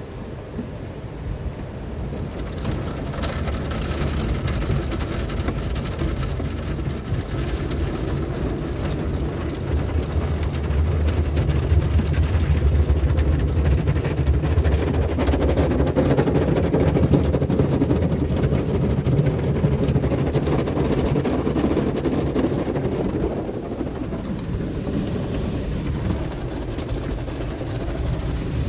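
Cloth strips and brushes of an all-cloth automatic car wash brushing and slapping against the car, heard from inside the cabin, over water spray on the glass and a low rumble. The rumble grows louder about ten seconds in and eases off near the end.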